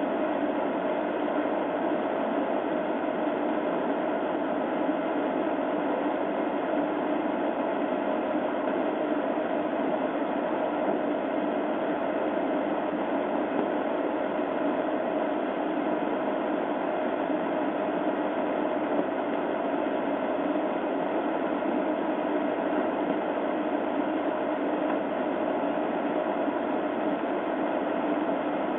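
Steady, unchanging hiss with a low hum on a police dashcam's audio, with no change from start to finish.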